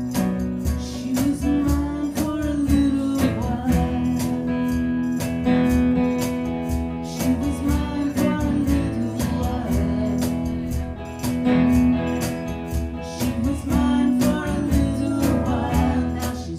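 Live acoustic band music: strummed acoustic guitar chords with a steady strummed rhythm and sustained notes.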